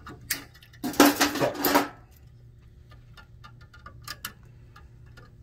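Diagonal cutters snipping safety wire at a turnbuckle, then pliers working the cut end: small metallic clicks and clinks, with a louder clatter about a second in and two sharper clicks near the end.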